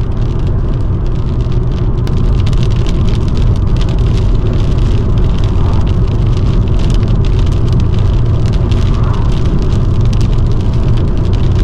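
Steady road and engine noise inside a moving car, with raindrops tapping on the windscreen that thicken into a constant patter about two seconds in.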